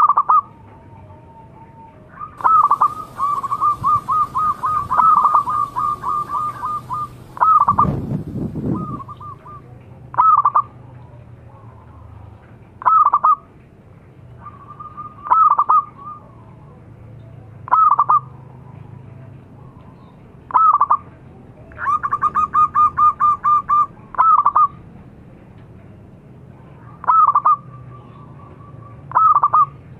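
Zebra dove (perkutut) calling loudly: a fast run of short, clipped coo notes for about four seconds, then single downward-bending coos every two to three seconds, with another quick run past the middle. A low rumble lasts about a second, some eight seconds in.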